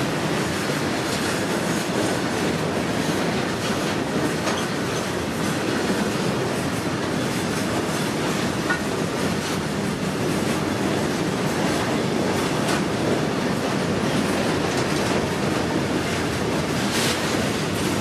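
Open-top BOXN freight wagons rolling past close by: a steady rumble of steel wheels on rail with clicks as the wheels pass over rail joints.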